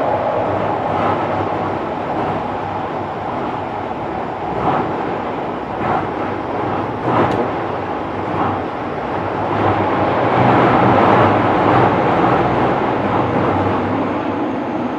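Kobe City Subway 6000-series train running between stations: a steady rumble of wheels on rail, with irregular clicks from the track every second or two. A faint whine from the Hitachi hybrid-SiC traction drive comes in near the end.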